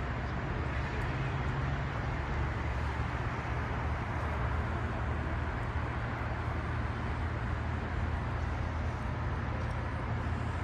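Steady road traffic noise with a low rumble, no single vehicle standing out.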